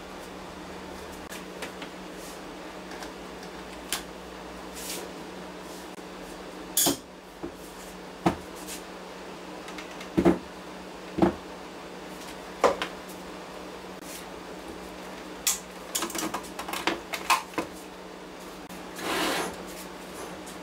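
Sharp metal clanks and clicks as steel pieces are set against and pulled off a homemade electromagnet, with a quick run of them near the end and a short scrape just after, over a steady low hum.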